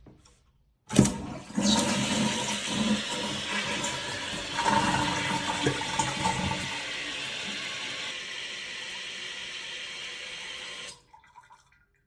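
Toilet flushed: a sharp click of the handle about a second in, then about ten seconds of rushing water that cuts off suddenly, a test of the newly installed adjustable fill valve.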